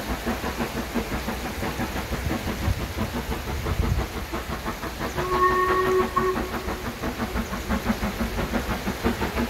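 Steam locomotive working with a steady rhythmic beat, likely the Black 5 No 45212. About five seconds in it gives one short whistle blast lasting about a second.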